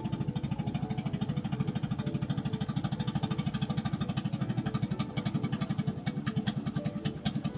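A small engine running steadily at low speed, chugging in rapid, even pulses.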